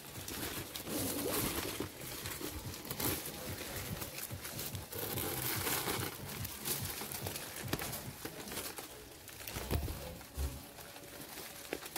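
Dry leaves and twigs rustling and a woven plastic sack crinkling as a snake is handled and pushed into the sack, in irregular bursts.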